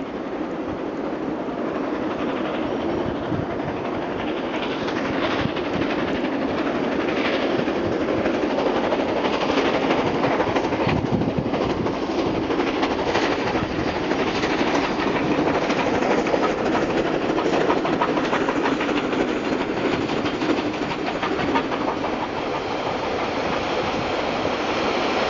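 Diesel-fired steam locomotive hauling a train of passenger carriages past at speed. It grows louder over the first several seconds as it approaches, then there is a steady rail clatter as the carriages go by.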